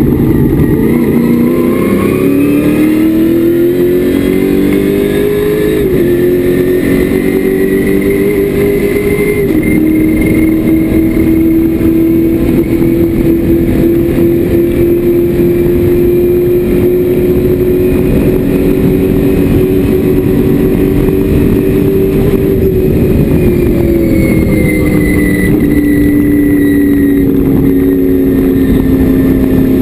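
Race car engine heard from inside the cockpit under hard acceleration: its pitch climbs and drops suddenly twice in the first ten seconds as it shifts up, then holds high and steady along a straight. About 23 seconds in the pitch falls away as the car slows, with another sudden drop right at the end.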